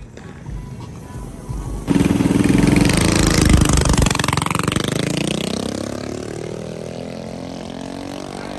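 Small mini-bike engines launching off the line and accelerating away down the drag strip: a sudden loud start about two seconds in, then the revs climb as the sound fades into the distance.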